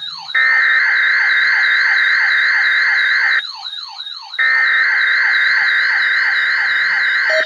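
Several electronic alarm tones sounding together: a steady high tone that cuts out briefly near the start and again for about a second midway, a higher tone warbling rapidly, and a siren sweep falling over and over about three times a second.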